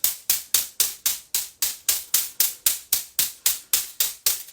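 Bamboo body tapper striking the body in a steady rhythm of firm taps, about four a second.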